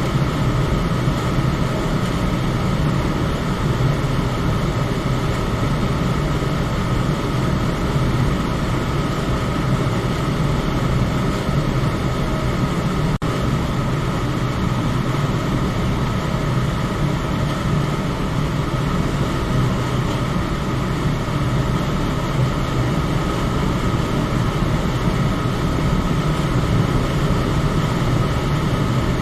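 Electric fan running steadily: a constant whooshing hum with a deep drone and a fainter band of airy noise higher up, unchanging throughout.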